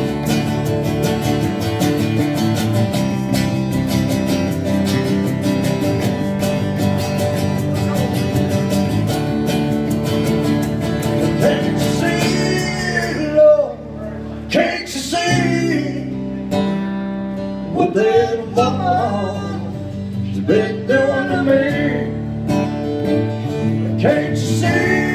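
A live country-rock band of strummed acoustic guitar and electric bass plays an instrumental passage. From about halfway, a man's voice sings wordless lines over it.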